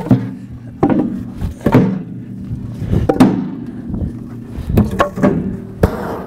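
Wooden boards being tossed and shoved into a steel firebox. There is a string of about nine knocks and clanks, wood on steel, each ringing briefly in the metal box.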